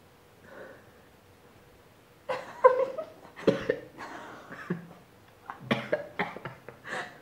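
A person coughing and gagging on a mouthful of baby food, in short irregular bursts that start about two seconds in.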